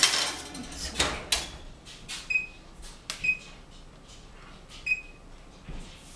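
A foil-covered pan slid onto an oven rack with a clatter, the oven door shut with two knocks about a second in, then three short high beeps from the oven's electronic keypad as its buttons are pressed.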